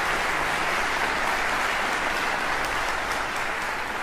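Concert audience applauding steadily, beginning to fade out near the end.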